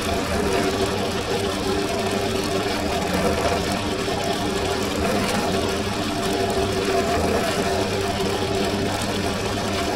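Benchtop drill press running steadily with a constant motor hum, a fine bit drilling stitch holes through a leather sheath face.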